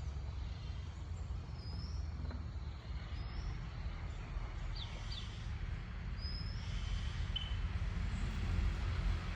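A steady low rumble with a few faint, short high chirps from birds.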